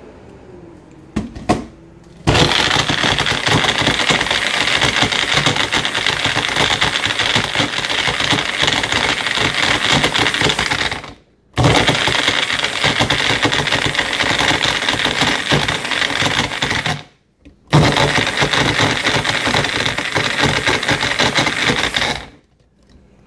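Magic Bullet personal blender running in three long bursts, its motor and blades whirring through the ingredients and water, stopping briefly about eleven and seventeen seconds in before it is pressed on again. A couple of short knocks come just before the first burst.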